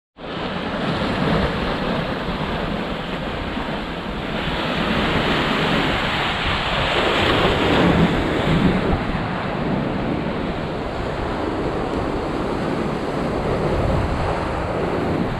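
Sea waves surging and washing against the rocks of a stone breakwater, with wind buffeting the microphone. The surge swells about halfway through.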